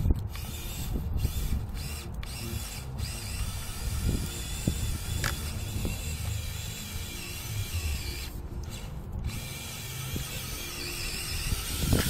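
Small electric motor and gear drive of a 1/24-scale Losi Micro rock crawler whining steadily as it drives through snow, with an uneven low rumble underneath.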